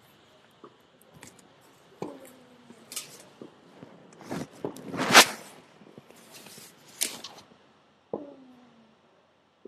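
Tennis rally: racket strikes on the ball, two of them about two and eight seconds in followed by a player's grunt that falls in pitch, with fainter hits and bounces in between. The loudest sound is a short noisy burst a little past the middle.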